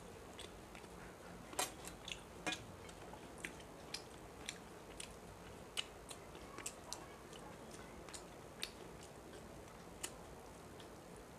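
Someone eating rice by hand from a steel plate: soft, irregular clicks and smacks from fingers mixing the food and from chewing, a few louder ones in the first few seconds.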